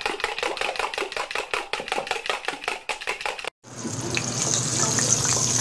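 Fast knife chopping on a cutting board, about six even strokes a second. After a short break about three and a half seconds in, a steady sizzle of food frying in hot oil with small crackles, growing a little louder.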